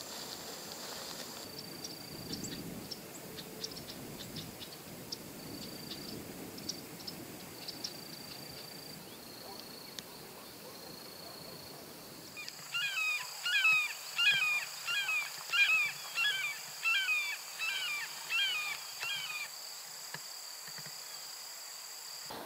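A bird gives a series of about a dozen loud, short, down-slurred calls, roughly one and a half a second, over a steady high-pitched insect buzz. Before the calls, only the insect buzz and a few faint ticks are heard.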